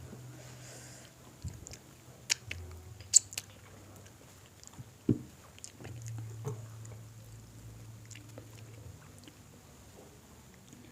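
Close-up biting and chewing of crispy fried chicken: scattered sharp crunches and mouth clicks, the loudest a few seconds in.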